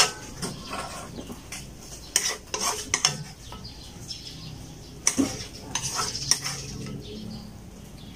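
Metal serving spoon scraping and clinking against a wok as cooked adobo mussels are scooped onto a plate. The scrapes come in short, irregular strokes, a few louder ones in the middle.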